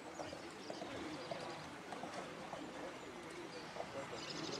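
Small birds chirping, with a fast, high trill starting near the end, over the faint soft hoofbeats of a horse cantering on sand.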